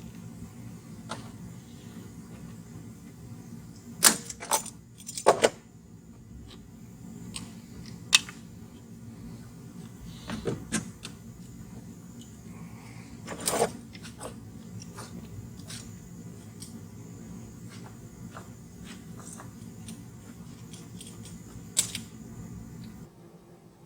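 Scattered sharp knocks and clicks, some in quick pairs, over a steady low hum that stops about a second before the end.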